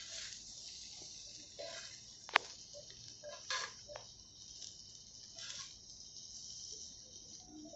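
Rice pulao frying on a tawa with a faint steady sizzle, stirred and mixed so that the utensil scrapes and knocks on the pan now and then; one sharp tap a little over two seconds in is the loudest sound.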